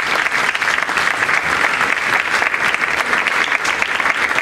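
Audience applauding, a dense patter of many hands clapping at a steady level.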